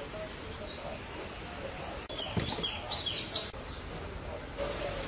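A bird calling: a quick run of five or six short, falling chirps about halfway through, with fainter chirps near the start. There is a sharp click just before the run.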